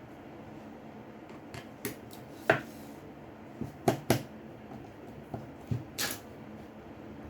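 Scattered sharp clicks and taps of small tools and parts being handled during a phone disassembly, about half a dozen over a few seconds. The loudest comes about two and a half seconds in, above a steady faint background hiss.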